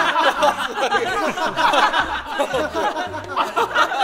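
A group of voices laughing and snickering together, over background music with a repeating bass line.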